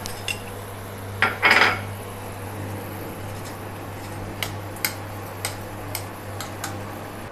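Metal spoon clinking and scraping against a stainless steel pan while stirring ghee into hot water. A louder scrape comes about a second and a half in, then scattered light clinks, over a steady low hum.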